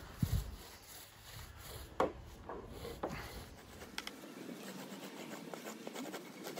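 Paintbrush spreading paint over a surfboard: soft brushing and rubbing with a few light clicks and taps.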